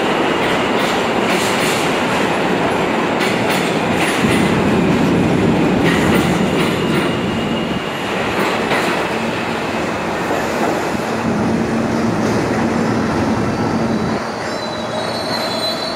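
New York subway garbage train (R32 and R127/R134 cars) running through an underground station. Its wheels clatter over rail joints with a loud steady rumble, then the sound fades as the train pulls away, with a thin wheel squeal near the end.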